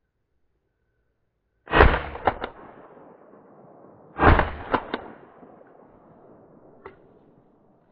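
Two shotgun shots about two and a half seconds apart, each a sharp blast followed by a couple of quick cracks and a fading tail.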